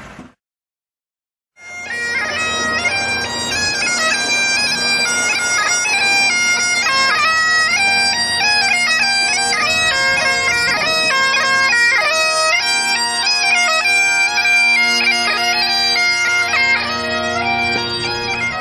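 Bagpipes playing a tune: a melody with quick grace-note ornaments over steady drones, beginning after about a second of silence.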